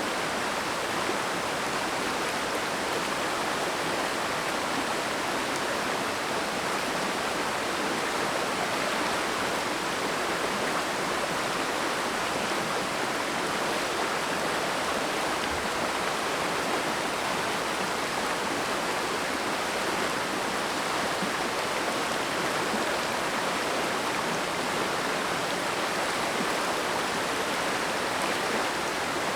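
Mountain stream flowing, a steady, even rush of water with no breaks.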